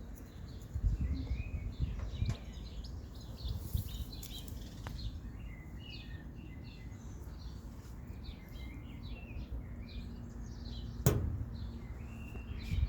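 Birds chirping: many short high calls scattered through, over a low rumble, with a sharp click about eleven seconds in.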